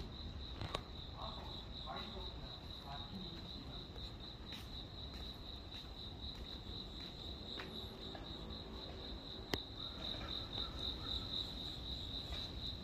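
Insects chirping in a steady, high, pulsing trill, over a low background hum, with a couple of light clicks.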